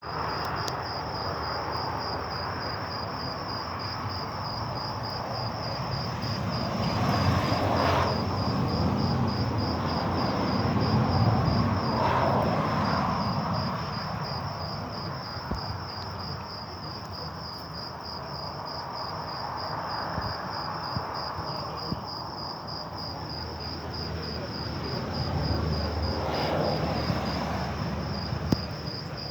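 Insect chirping: a steady, high, evenly pulsing trill that keeps on without a break. Underneath it, a low rumbling noise swells up and dies down a couple of times.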